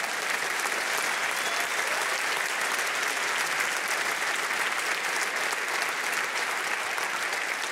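Theatre audience applauding, a dense steady clapping.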